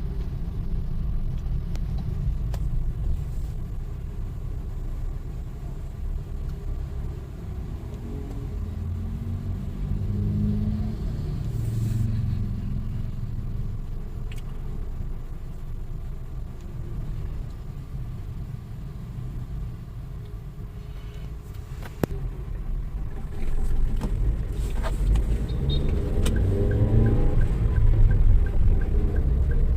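Car driving, heard from inside the cabin: a steady low engine and road rumble that grows louder in the last few seconds. A few sharp clicks, and near the end a light regular ticking.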